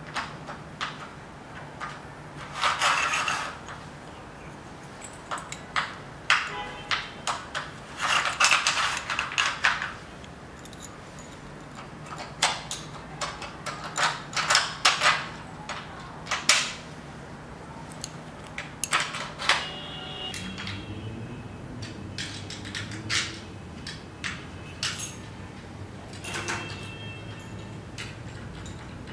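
A metal corner bracket being worked into the channel of a metal screen-frame rail by hand: a long run of irregular clicks, scrapes and light metallic clinks, a couple of them leaving a short metallic ring.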